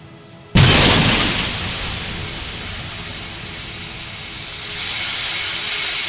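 A sudden loud crash-like boom about half a second in, the impact of a car crash, followed by a long hissing rush that dies down and then swells again near the end.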